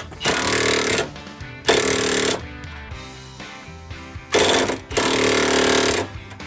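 Impact wrench running in four short bursts of about a second or less each, over background music.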